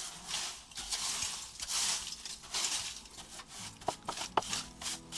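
Broom sweeping a stone floor in repeated short, scratchy strokes. Background music comes in near the end.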